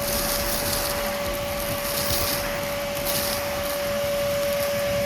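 Electric motor running at a steady speed with a constant whine and a rushing, air-like noise.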